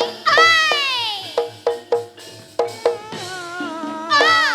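Javanese jaranan dance accompaniment: drums and short struck metal notes keep a steady beat under a melody line. The melody swoops down in pitch just after the start and wavers again near the end.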